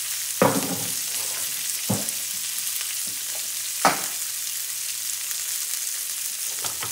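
Diced onions and yellow peppers sizzling in oil and butter in a hot skillet, just starting to sauté, as a steady frying hiss. A few sharp knocks stand out over it, about a second and a half to two seconds apart.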